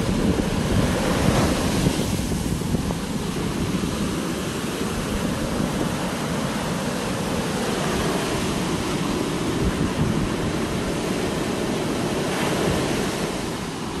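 Rough sea surf breaking and washing up a sandy beach in a steady rush, swelling slightly as waves break, with wind buffeting the microphone.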